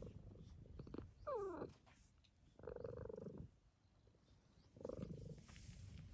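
Cat purring faintly, with a falling meow about a second in and two shorter, steadier cat calls later.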